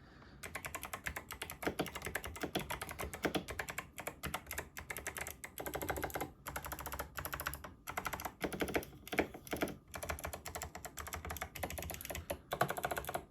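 Fast typing on a mechanical keyboard with clicky Kailh Box White V2 switches: a dense run of sharp key clicks with a few brief pauses.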